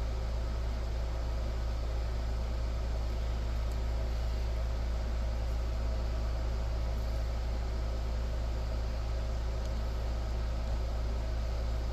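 Steady low hum with an even background hiss that does not change.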